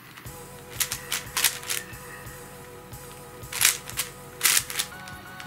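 Layers of a non-magnetic YJ RuiChuang 5x5 plastic speed cube being turned by hand: irregular runs of quick clacks and scrapes, with a lull in the middle.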